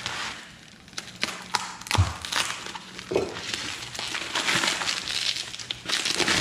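Plastic wrapping crinkling and rustling as a battery cell is pulled out of its bag, with many sharp crackles and a thump about two seconds in.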